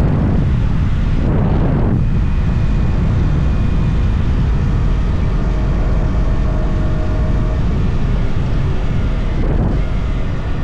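Yamaha R125's single-cylinder four-stroke 125cc engine running at a steady cruise on the move, under a heavy wind rush on the microphone. The wind swells in gusts in the first two seconds and again near the end, while the engine holds a steady note in between.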